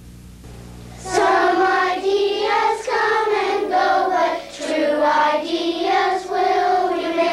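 Young children singing a slow melody in sustained phrases, starting about a second in after a faint low hum.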